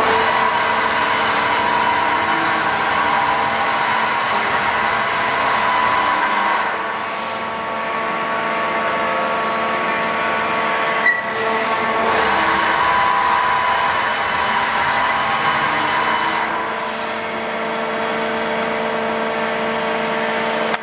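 Hartford CNC machining center milling a large casting die: a steady machine whir with several held whining tones, easing off briefly three times, with a short click near the middle.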